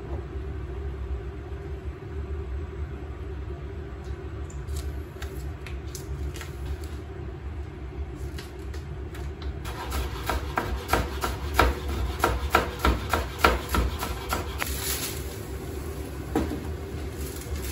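Plastic food pouch being handled and torn open: crinkling and crackling that grows dense and loud for a few seconds in the middle, over a steady low rumble.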